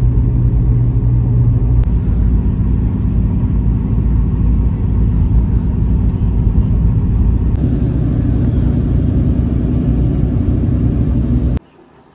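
Steady low road and engine rumble inside a moving car. It cuts off suddenly near the end.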